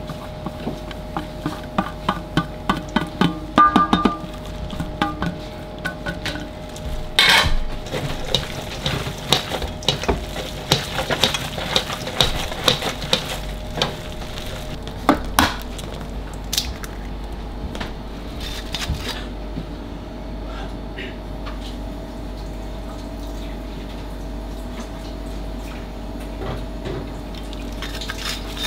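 A small metal bowl of chopped onion knocked several times in quick succession against the rim of a stainless-steel mixing bowl, then a gloved hand kneading the wet pâté mixture of ground pork and chicken liver, with irregular soft clicks and knocks against the steel. After that only a steady kitchen hum remains.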